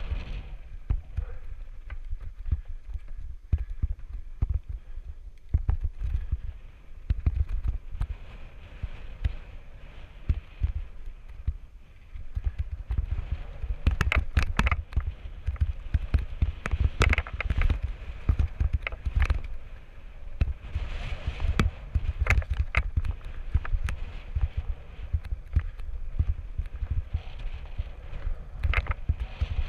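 Mountain bike descending dry, rocky dirt singletrack, heard through a camera on the rider: a steady rumble of tyres and wind on the microphone, with many sharp clatters and knocks from the bike jolting over rocks, thickest about fourteen to seventeen seconds in.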